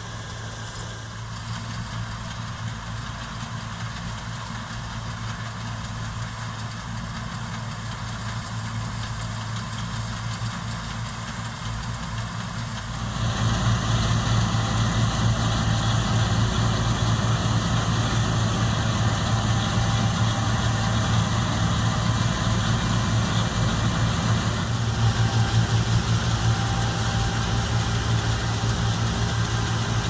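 Laverda M304 combine harvester running steadily with its engine and threshing machinery working while it cuts wheat. The sound gets suddenly louder about 13 seconds in, then holds steady.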